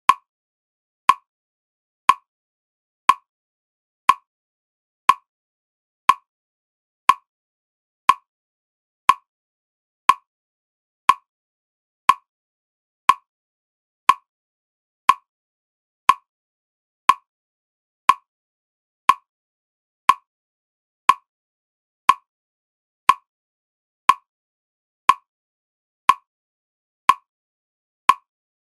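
Single sharp clock-like ticks, one every second, evenly spaced with silence between, a steady one-second pacing beat for concentration meditation.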